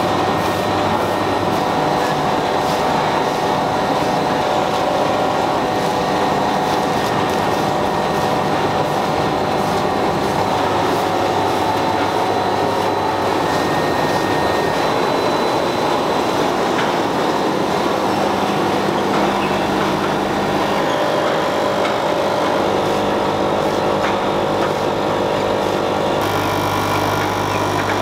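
Continuous din of seaweed-snack production-line machinery running, with steady hums that shift as the machines change. About two seconds before the end, a low steady hum joins in, as from a spring-mounted vibrating conveyor.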